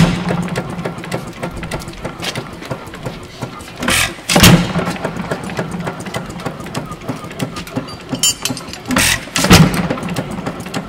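Moody (Jacobson) sideshaft hit-and-miss gas engine with a new muffler, running: it fires in pairs of sharp bangs about every four to five seconds and coasts between firings with a steady low hum and light ticking.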